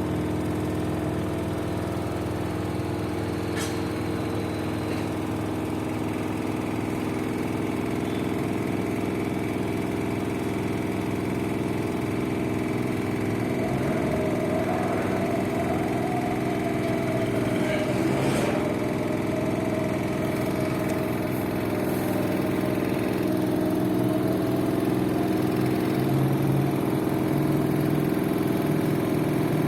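LG FV1450S1B front-loading washing machine on its spin cycle: a steady machine hum that grows a little louder, with a faint wavering whine in the middle and a couple of brief clicks. It is the odd noise that the owner likens to a bolt that is not tight enough.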